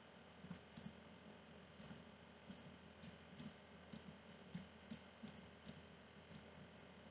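Faint computer mouse clicks, about a dozen at irregular intervals, over near-silent room tone.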